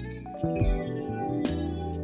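Background music with held chords and sharp struck notes.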